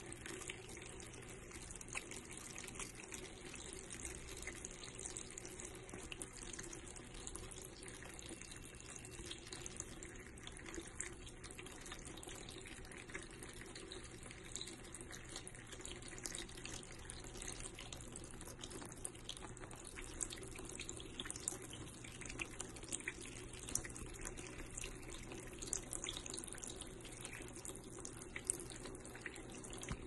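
Thin streams of water pouring from a row of holes in a metal pipe onto leafy greens in a plastic tray: a steady trickling splash with many small irregular splashes as a budgie bathes under the streams.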